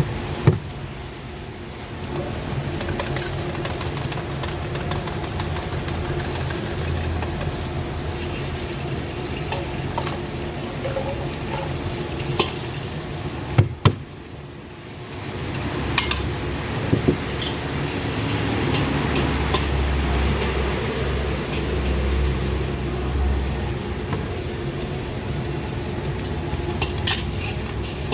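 Street-stall wok frying: a steady sizzle with a metal spatula stirring and scraping. Now and then it knocks sharply against the wok, over a steady low rumble. The sizzle drops off briefly about halfway through, then picks up again.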